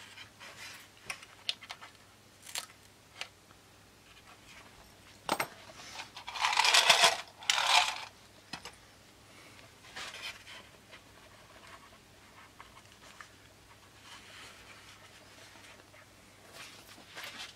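Small workbench handling sounds: scattered light clicks and taps as a loose plywood plate is pressed back into a balsa glider wing and pinned while it is reglued. About six to eight seconds in come two louder rushes of noise, one longer and then a shorter one.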